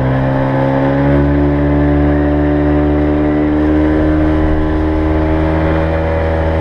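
Motorboat engine running at high throttle after being opened up, its pitch creeping a little higher over the first couple of seconds and then holding steady.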